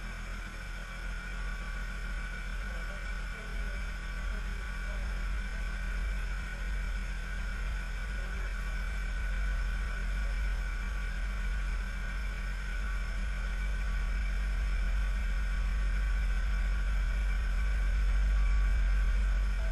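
Vintage Humber 14-40 four-cylinder engine running steadily on a test stand chassis, a smooth even low hum that slowly gets louder. It runs smoothly now that its magneto has been put right.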